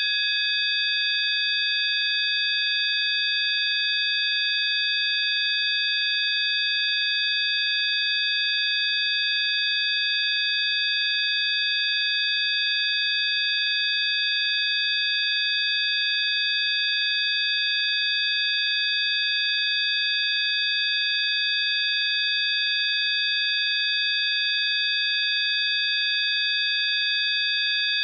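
Synthesized 'healing frequency' sine tones: several high-pitched pure tones sounding together, held perfectly steady without any change, over a faint hiss.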